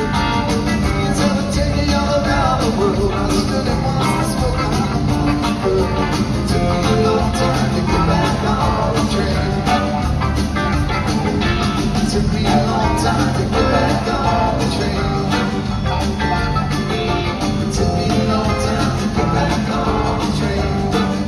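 Live rock band playing continuously, with drums, bass and keyboards, heard from the stands of an arena.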